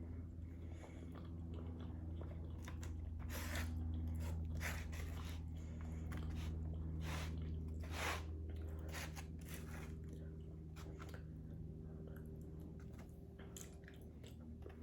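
A person chewing food close to the microphone in irregular, crackly mouthfuls, over a steady low hum.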